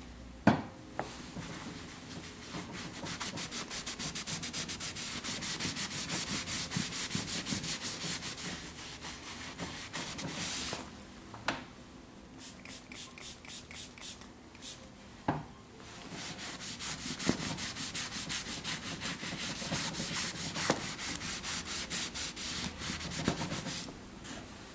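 Foam application sponge rubbed quickly back and forth over a leather cushion, working leather protector into the grain in even, rhythmic strokes that ease off midway and then pick up again. A few sharp knocks come in between, the loudest just after the start.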